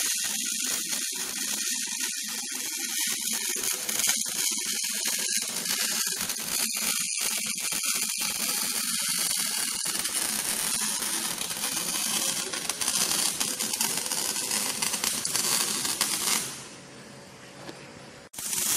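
MIG welder arc crackling in a dense, rapid stream as it welds exhaust tubing. Near the end the crackle gives way to a quieter, steady hiss for a couple of seconds.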